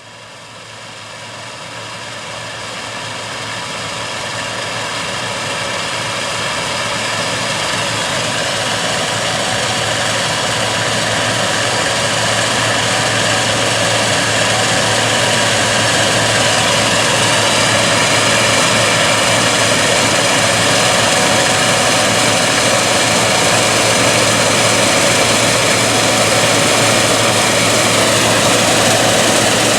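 Gleaner S97 combine harvesting soybeans: its 9.8-litre AGCO Power diesel engine and threshing machinery run in a steady drone with several high whining tones. The sound fades in over the first several seconds, then holds steady, with small shifts in pitch.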